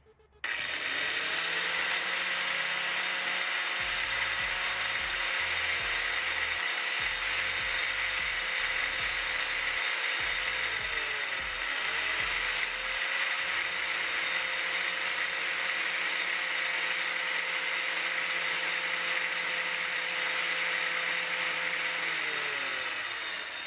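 Angle grinder running steadily with its disc grinding the head off a steel drive-chain pin, to free the pin for the chain breaker. The motor's pitch dips briefly under load about halfway through and recovers, then it spins down near the end.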